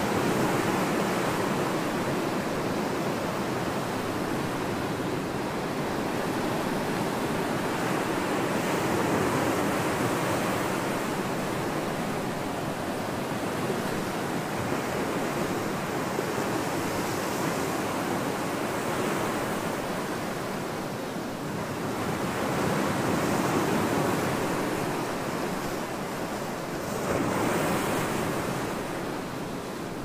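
Ocean surf breaking and washing up a sandy beach: a continuous rush of waves that swells louder as each wave comes in, plainly about nine seconds in and twice more near the end.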